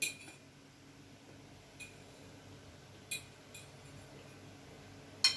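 Cutlery clinking against a plate during eating: a handful of short, sharp clinks over a quiet background, the loudest near the end.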